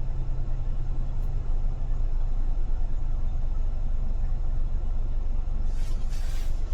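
Car driving in city traffic: a steady low rumble of engine and road noise. Near the end comes a short hiss lasting about a second.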